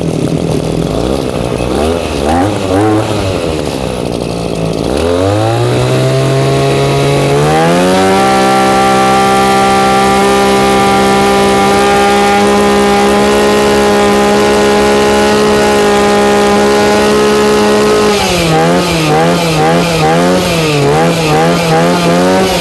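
Echo two-stroke brush cutter engine running, uneven at low speed at first, then revved up in two steps about five seconds in and held at a steady high speed for about ten seconds. It drops back to a wavering lower speed near the end, running quite strong.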